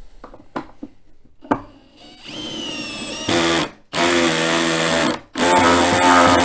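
A few light clicks, then a power drill driving a screw into the shelf panel. It starts slowly with its whine rising in pitch, then runs hard in three bursts, the last the longest.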